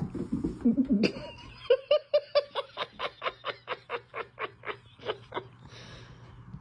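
A person laughing in a fast, even run of short high 'ha' bursts, about five a second, for several seconds before it tails off.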